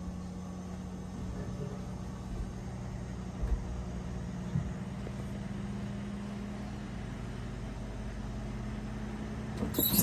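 A steady low mechanical hum, with two short faint knocks about a second apart near the middle and a brief rustle near the end.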